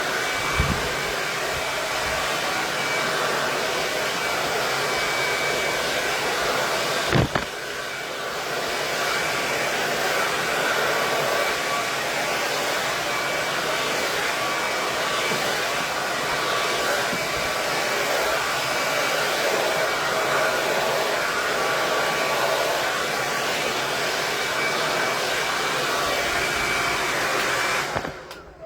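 KISS 1875-watt Pro tourmaline ceramic hair dryer running steadily, with a brief knock about seven seconds in. The dryer cuts off near the end.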